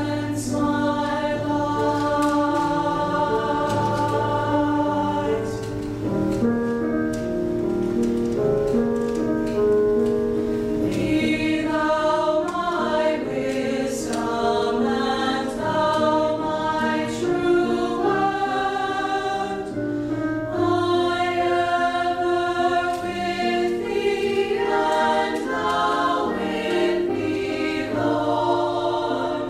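A small choir singing together, moving through held chords.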